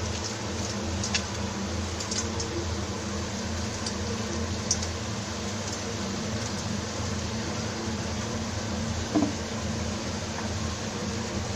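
Potatoes being stir-fried in chilli-potato gravy in a pan: a steady sizzle over a low hum, with a few light clicks of the spatula against the pan.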